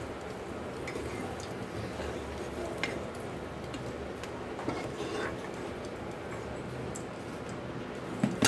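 Steel slotted spoon scooping fried potato chips out of hot oil in an iron kadhai and knocking against the pan and a steel bowl, a few separate clinks over a steady hiss; the loudest knock, a quick double one, comes near the end as the bowl is moved.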